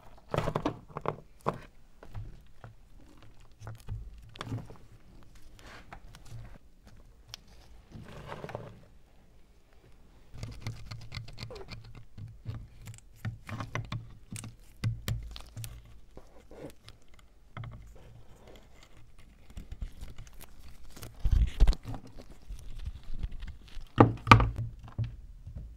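Caked dirt being pried and broken off a rusty iron meat grinder with pliers and gloved hands: irregular knocks, scrapes and clods crumbling and dropping onto a board, with a few heavier thumps near the end.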